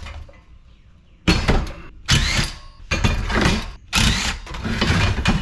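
Metal parts of a scrapped LED light fixture clanking and scraping as they are handled and pulled apart, in a series of sharp, irregular bursts starting about a second in.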